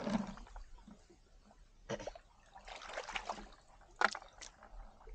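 Muddy canal water splashing and sloshing in short, irregular bursts as children wade waist-deep and move a plastic bucket through it. The sharpest splash comes about four seconds in.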